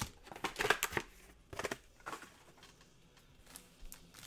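Wrapped Panini Select Soccer card packs handled and set down: short plastic-wrapper crinkles and light taps, a few at a time, thinning out in the middle.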